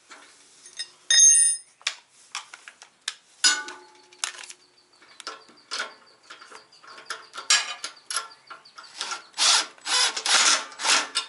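Handling of steel parts and fasteners: clicks and knocks, with a ringing metal clink about a second in. Near the end a Milwaukee cordless impact driver runs a nut onto a bolt in several short loud bursts, while a wrench holds the other side.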